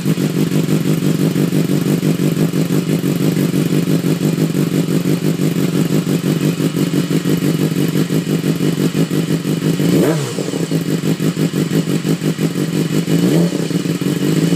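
2013 BMW S1000RR's inline-four engine idling through an Austin Racing GP2R exhaust. About ten seconds in the throttle is blipped once, a quick rise and fall in pitch, with a smaller blip near the end.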